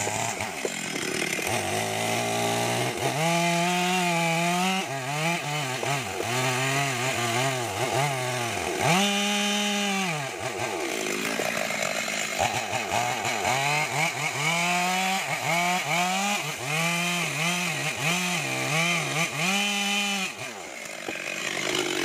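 Stihl petrol chainsaw cutting into a tree trunk, its engine pitch dipping and rising again and again as the chain bites and frees, then dropping back near the end.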